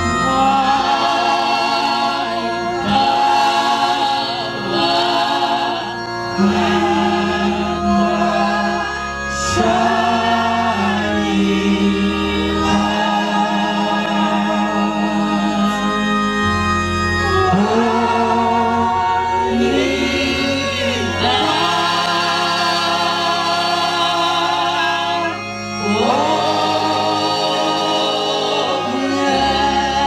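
A church choir singing a hymn in unison, voices with a strong vibrato, carried over microphones and accompanied by sustained electronic organ chords.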